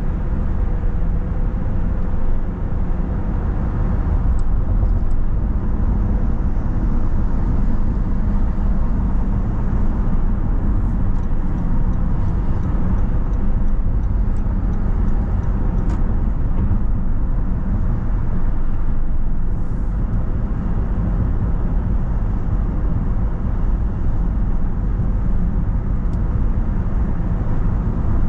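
Car driving at steady speed: a continuous low rumble of tyre, road and engine noise.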